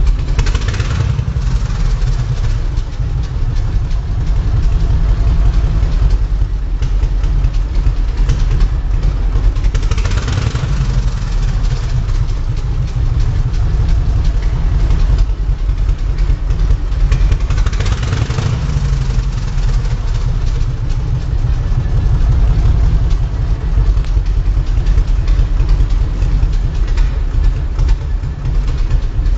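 Motorcycle engine running steadily at idle, with a deep low rumble. Three brief swells come about a second in, about ten seconds in and about eighteen seconds in.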